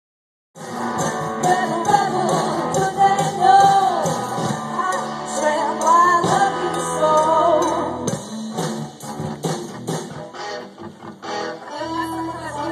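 Live rock band playing loud with guitars and a singer, heard straight from the room. The music cuts in about half a second in; the vocal drops out around two-thirds of the way through, leaving the instruments playing more quietly.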